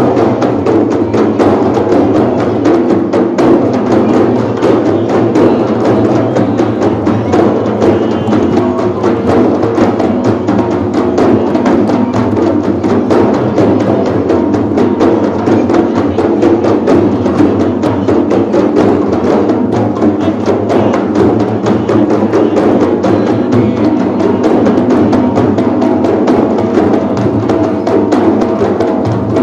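An ensemble of large hide-headed frame drums (rebana) struck by hand in a fast, steady, continuous rhythm.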